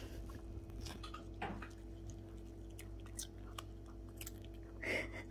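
A poodle chewing a piece of carrot, with irregular short crunches scattered through, and one brief louder sound near the end.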